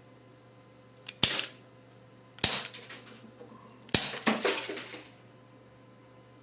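Umarex Glock 17 CO2 air pistol firing three shots a little over a second apart, each sharp crack followed by a short rattle, the last rattle the longest.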